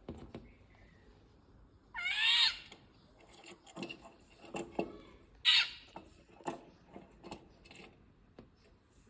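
Indian golden oriole calling: two loud calls with a wavering pitch, about two seconds and five and a half seconds in, with several shorter, sharper calls between and after them.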